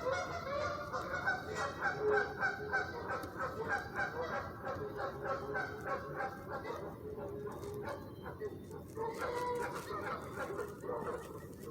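Geese honking repeatedly, many short calls overlapping from several birds, thinning out in the second half.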